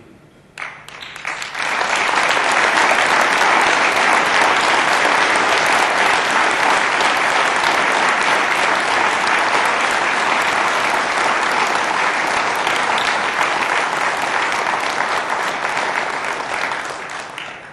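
Audience applauding: the clapping starts about half a second in, swells within a couple of seconds, holds steady, and dies away near the end.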